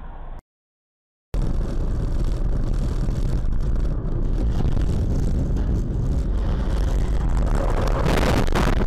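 After about a second of silence, a car driving at highway speed: steady loud road and wind noise. Near the end comes a brief louder harsh crash noise as the car runs into a dust cloud from a load spilled across the road.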